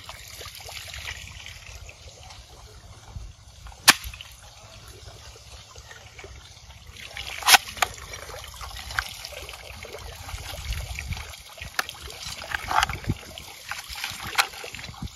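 Plastic clicks and snaps from a toy M249 gun being handled and loaded with toy shells: two sharp loud clicks about 4 and 7.5 seconds in, then several softer clicks. Faint trickling water runs underneath.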